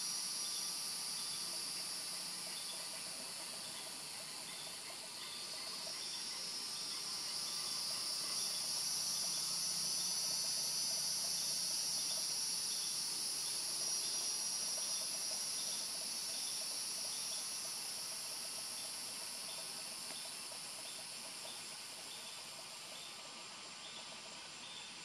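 Steady chorus of insects: a high, even hiss in two layers that swells in the middle and eases a little near the end, with a faint chirp repeating about every half second.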